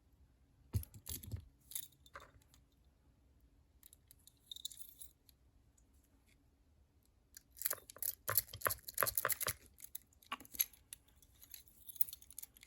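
A metal rake pick scrubbing the pin tumblers of a Master Lock No. 3 padlock, with small metallic clicks and scrapes. There is a short burst about a second in, then a dense run of rapid clicking from about seven and a half seconds to ten seconds.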